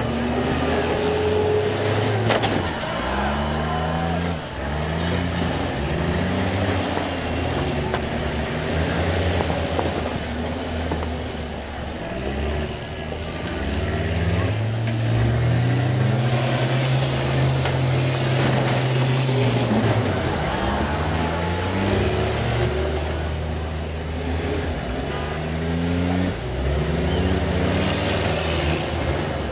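School bus engines revving hard again and again, their pitch climbing and dropping back every second or two, with one long held high-rev stretch in the middle. A high whine rises and falls along with them. A sharp bang comes about two seconds in.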